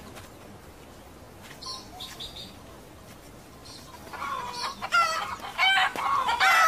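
A few faint high chirps, then from about four seconds in domestic chickens break into loud, repeated, wavering squawks and clucks as they scatter.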